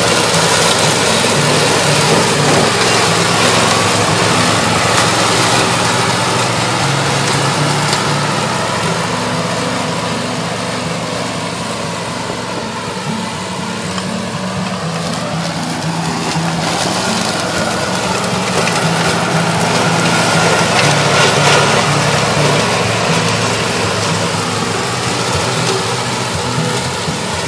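Toro TimeCutter ZS4200T zero-turn ride-on mower running steadily while its deck cuts through waist-high meadow grass. The engine note eases somewhat about halfway through and swells again later on.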